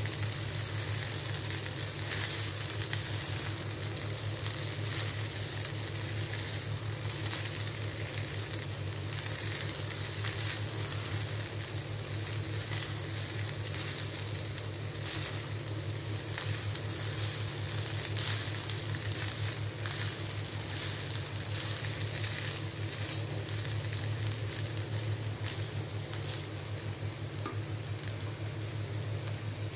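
Cooked rice with butter and green chillies sizzling as it is stir-fried in a nonstick pan, with the silicone spatula scraping and turning it through. A steady low hum sits underneath.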